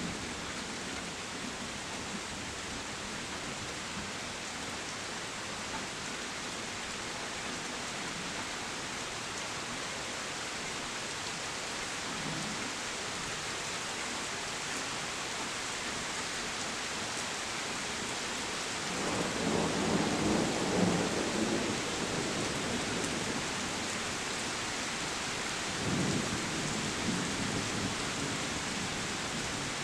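Steady heavy rain hissing through a thunderstorm, with a rumble of thunder rolling in about two-thirds of the way through and a shorter, weaker rumble near the end.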